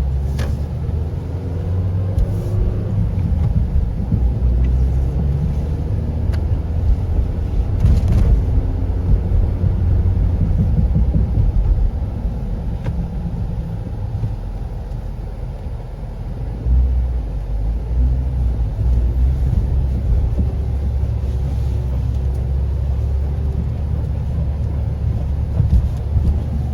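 Suzuki Swift Sport ZC31S being driven: steady engine and road rumble inside the cabin, with a few sharp knocks along the way.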